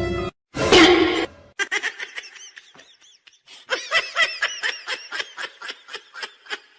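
A person laughing in a long run of short, high-pitched bursts, about three or four a second, after one louder burst near the start.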